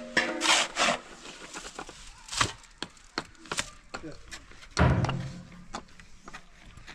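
Wood knocking and cracking in irregular sharp strikes, with a brief low-pitched call about five seconds in.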